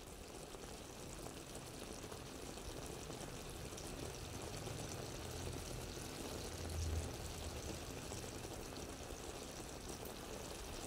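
Thick sauce with chicken wings simmering and bubbling in a pan, a steady quiet bubbling with a brief low bump about seven seconds in.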